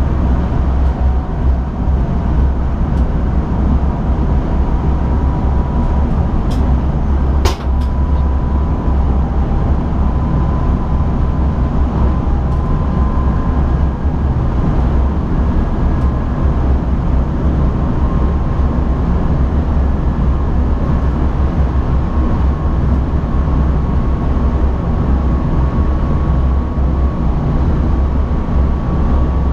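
Cab of an NS ICM electric multiple unit running at speed: a steady low rumble of wheels on the track, with a faint steady whine above it. A single sharp click comes about seven and a half seconds in.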